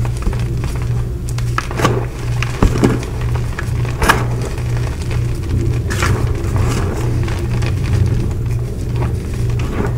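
Hands squeezing and crumbling dyed gym chalk blocks in a bowl of loose chalk powder, with soft, irregular crunches and crackles over a steady low hum.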